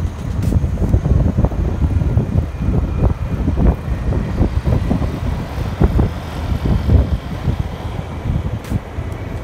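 Road vehicle on the move: a steady low rumble broken by many short thumps and knocks.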